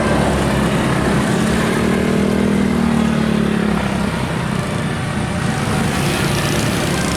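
Motor vehicles running on the road: steady engine and road noise, with a low engine tone that swells from about a second and a half in and fades near four seconds.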